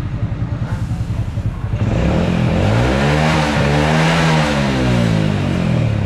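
An old step-through motorcycle's engine idling, then revved up about two seconds in, held briefly and let back down to idle, as it is test-run after repair work. It runs without trouble.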